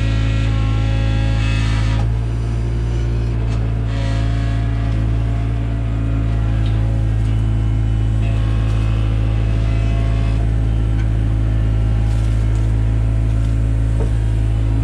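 Diesel engine of a Takeuchi TB175 excavator running steadily at working speed, with a steady drone. About two seconds in the sound eases slightly and loses some of its upper hiss.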